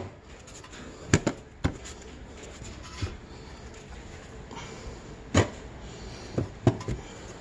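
Stiff plastic sheet being handled and pressed into a truck's wheel well: a handful of short, sharp knocks and taps as it flexes and bumps against the frame, loudest about a second in and again about five and a half seconds in.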